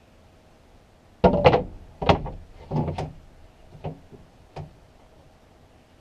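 Wooden pieces being handled and set down: a quick run of loud knocks and clatters lasting about two seconds, then two lighter knocks.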